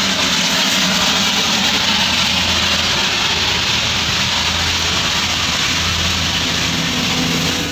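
Engines running at idle with a steady low hum under a loud, even hiss, heard from inside a car as the Darjeeling Himalayan Railway toy train passes close beside it.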